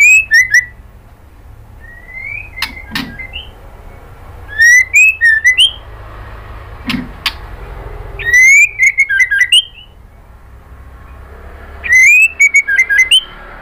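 White-rumped shama singing: five loud phrases, each a quick run of whistled notes mixed with harsh clicking chatter, coming about every three seconds.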